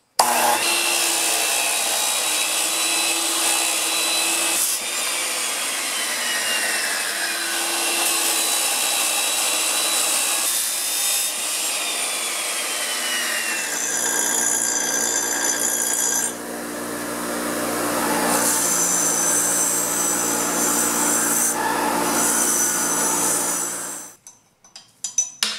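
Abrasive chop saw cutting through a metal exhaust pipe: a continuous whine and grinding from the cut-off wheel, whose pitch sags twice as the wheel bites into the pipe. It stops suddenly about a second and a half before the end, followed by a few light clicks.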